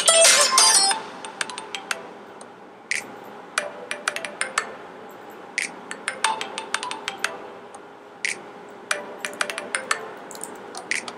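Background music: a light, tinkling tune, busy for about the first second, then thinning to sparse chiming, plucked-sounding notes.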